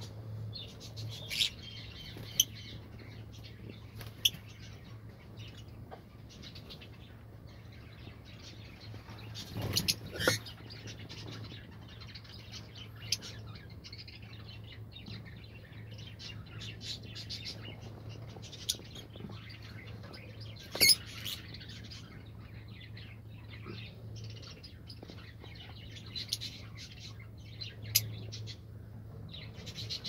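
Lovebirds chirping: short, sharp calls come at irregular intervals, with a few louder ones standing out, over a steady low hum.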